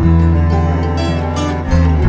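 Background music: held string and plucked notes, with a new chord about every second.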